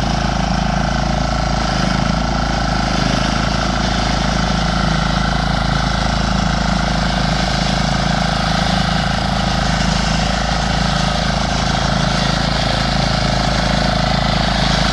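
Diesel engine of a power lawn mower running steadily at an even speed.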